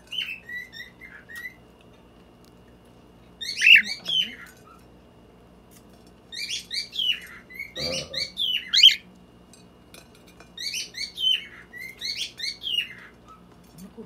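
Lutino cockatiel singing: four phrases of quick rising and falling whistled notes with short pauses between them. A dull knock a little after halfway through.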